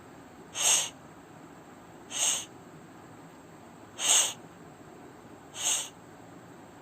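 A woman voicing the phonics sound of the letter F, a voiceless "fff" hiss, four short times about a second and a half apart.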